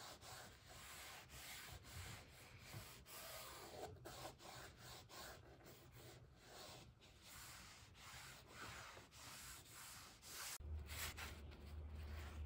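Faint hand rubbing on the wooden door surface, worked in repeated strokes with short breaks between them. A low hum comes in near the end.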